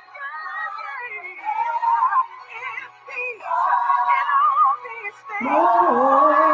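Gospel song with a woman's voice singing long, wavering held phrases, broken by short pauses.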